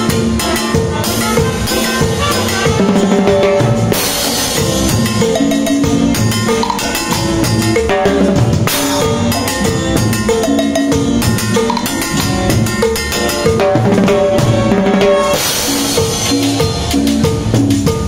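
Latin-style band music with drums played with sticks, dense rhythmic drum and rim hits over repeating bass and keyboard notes, with cymbal crashes about four seconds in and near the end.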